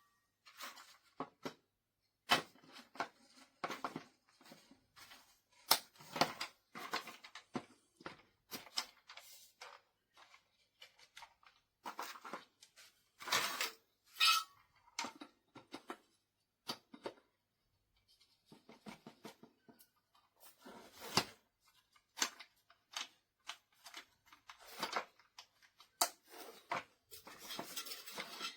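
Packaging and parts being handled by hand: irregular rustling, tearing and sharp clicks, with short pauses between.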